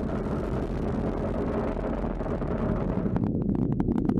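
SpaceX Falcon 9 first stage's nine Merlin engines burning normally during ascent, a steady low rumble. About three seconds in the hiss thins out and a rapid, uneven crackle of sharp pops joins the rumble.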